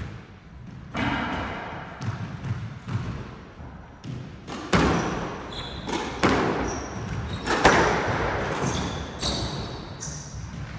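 A squash rally: sharp cracks of racquet on ball and ball on wall, about six, every second or so, each with a short echo in the enclosed court. Brief high squeaks from court shoes on the hardwood floor come in the second half.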